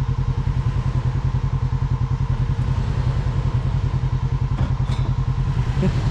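Toyota 4Runner's 4.0-litre V6 engine running near idle while the truck crawls over rough dirt track, a steady, evenly pulsing low throb.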